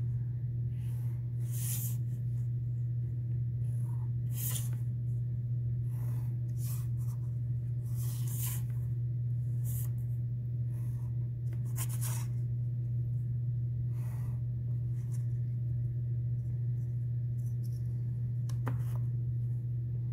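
White colored pencil drawing short straight strokes along a ruler on construction paper: separate scratchy strokes every few seconds, over a steady low hum.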